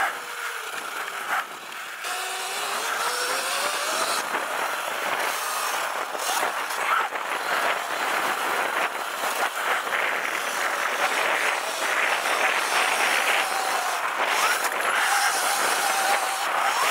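Sur-Ron Light Bee electric dirt bike with a KO Moto Factory Spec motor and controller being ridden: a motor whine that rises and falls in pitch with the throttle, over a steady rushing noise.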